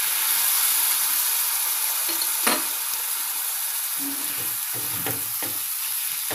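Pumpkin pieces sizzling steadily as they fry in a steel kadai. A metal spatula clinks once against the pan about halfway, then scrapes and knocks repeatedly against it as the pieces are stirred near the end.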